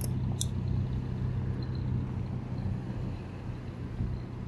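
Steady low rumble of road and traffic noise while riding an electric bike slowly behind stop-and-go cars and a delivery truck, with two short clicks in the first half-second.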